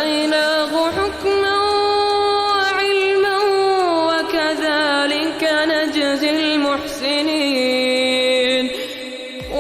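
A male Quran reciter chanting in melodic tajweed style, holding long drawn-out notes with ornamented turns. His pitch steps down a few times.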